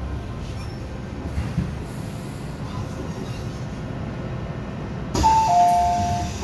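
MTR M-Train rolling slowly to a stop with a low steady rumble. About five seconds in the doors open with a sudden clunk and the door chime starts, a higher note falling to a lower one.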